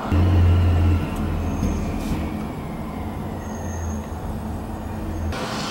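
A low steady rumble with a faint, slowly falling whine above it, loudest in the first second and cutting off abruptly near the end.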